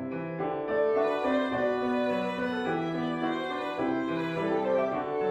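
Violin playing a melody of held notes over piano accompaniment, in a trio arrangement for flute, violin and piano.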